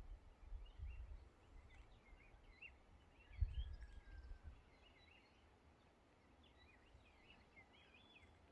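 Faint small birds chirping, many quick short chirps throughout, with a low rumble in the first half that is loudest about three and a half seconds in.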